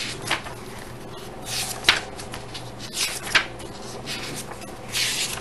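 Paper pages of a small booklet manual being flipped by hand: about four brief, dry swishes a second or so apart.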